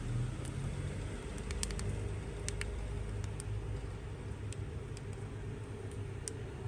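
Steady low mechanical hum with about a dozen small, sharp clicks scattered over it, most of them in the first half.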